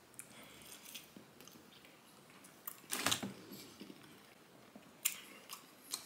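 Close-miked chewing of a soft mouthful of grilled cheese burrito dipped in nacho cheese: wet smacking mouth sounds, louder about three seconds in and again about five seconds in.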